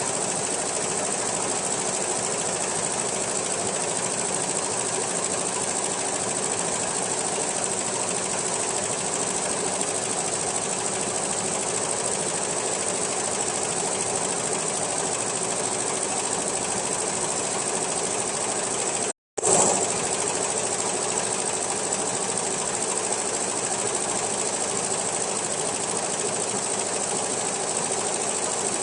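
A 134-inch multi-needle quilting embroidery machine running steadily, stitching. The sound cuts out completely for a split second about two-thirds of the way through, then resumes.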